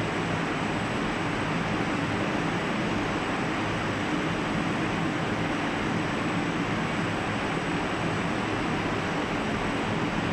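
Glass screen-printing line with its roller conveyor running: a steady, even airy hiss over a low hum, with a faint high steady whine.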